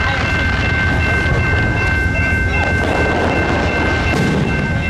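Amtrak Superliner passenger cars rolling past a grade crossing: a steady rumble of wheels on rail, with steady high ringing tones over it.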